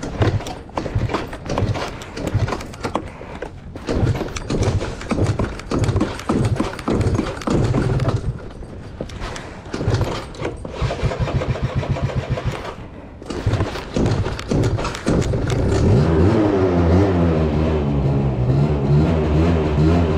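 Yamaha JOG Aprio's 50 cc two-stroke scooter engine being cranked again and again, firing only in uneven, sputtering bursts with short pauses: it is hard to start. About fifteen seconds in it catches and settles into a steady running note that wavers slightly in pitch.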